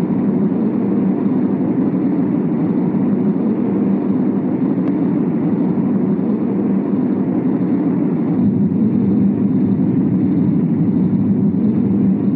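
Diesel locomotive running at speed, a steady rumble of engine and wheels heard from the cab.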